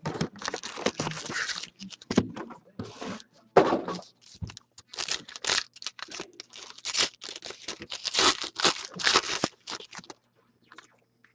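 Foil hockey-card pack wrappers being torn open and crinkled by hand: a quick run of short rips and rustles with brief pauses, dying away near the end.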